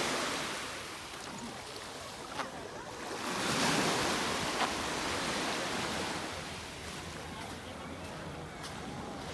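Sea waves washing onto the beach, rising and falling away. One surge fades in the first second, and another swells about three and a half seconds in and then ebbs.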